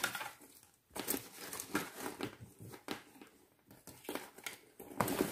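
Small items being packed back into a leather handbag: scattered rustling and crinkling with light clicks and knocks.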